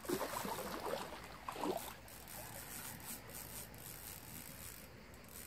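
A hooked sturgeon thrashing and splashing at the water's surface while being played on the rod, loudest over the first two seconds, then quieter splashing.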